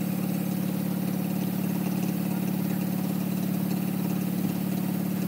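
Garden tractor engine idling steadily.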